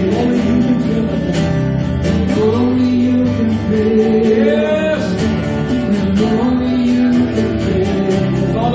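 Live church worship band playing a slow gospel song: guitar and keyboard over drums with regular cymbal strokes, with a voice singing along.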